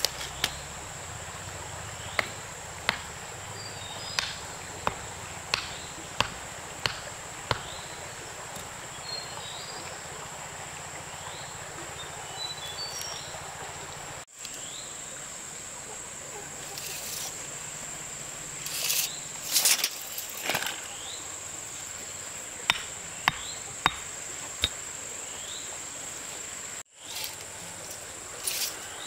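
Insects keep up a steady high-pitched drone throughout. Over it come sharp knocks, about one every 0.7 s for the first seven or eight seconds and four more a little past two-thirds of the way through, with a few faint bird chirps.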